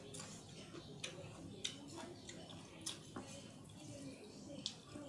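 Close-miked eating sounds: quiet chewing with a few sharp, irregular mouth clicks and smacks.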